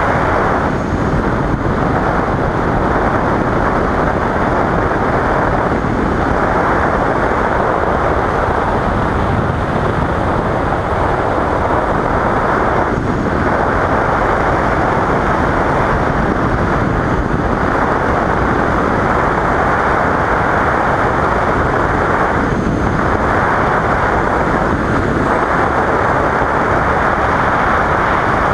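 Steady wind rush on a helmet-mounted action camera riding a 2015 Yamaha FZ-07 motorcycle at about 40 mph, with the bike's engine and road noise buried in it.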